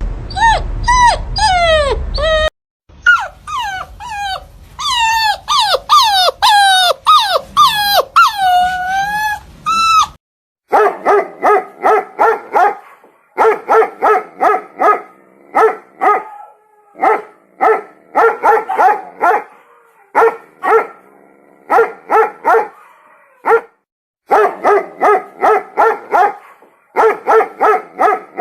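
Dog sounds: for about the first ten seconds, whining, howl-like calls that slide up and down in pitch; then a dog barking in quick runs of short barks, several a second, with short breaks between the runs.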